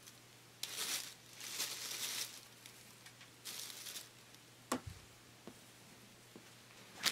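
A thin plastic bag and toy packaging rustling and crinkling in three short bursts, followed about five seconds in by a single sharp click with a soft thump.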